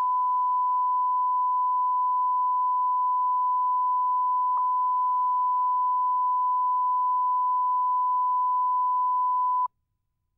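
A steady 1 kHz sine test tone, the line-up tone placed at the head of a broadcast master, with a faint tick about halfway through. It cuts off suddenly near the end.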